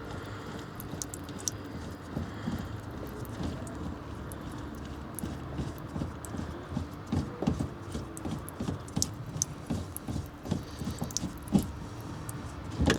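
Irregular light clicks and knocks of the diesel fuel filter housing being unscrewed by hand and handled, growing busier in the second half.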